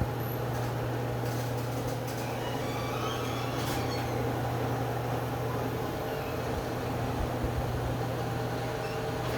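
LiftMaster screw-drive garage door opener running steadily as it raises the door: a low motor hum with mechanical running noise. The opener is very noisy, and the owner says it needs a little lube.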